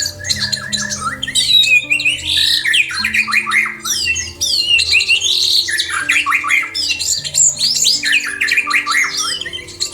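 A crowd of aviary birds chirping and squawking over each other without a pause, set against soft background music of slow, held low notes.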